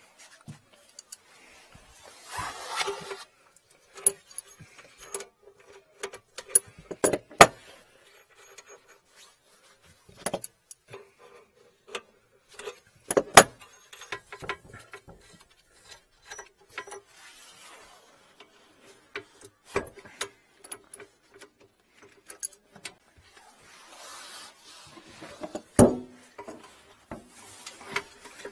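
Scattered clicks, clinks and knocks of gloved hands and tools working on a heating manifold's metal fittings and corrugated flexible hoses, with bits of rustling; the loudest knocks come about a quarter, half and nine-tenths of the way through. A faint steady hum runs underneath.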